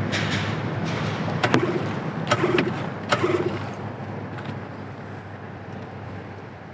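15 hp dinghy outboard motor being pull-started: three quick yanks on the starter cord about a second apart, each a short rasp of the engine turning over without catching.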